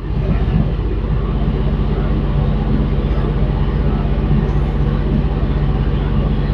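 Kubota D1703 three-cylinder diesel engine of a mini excavator running steadily, stepping up in loudness right at the start.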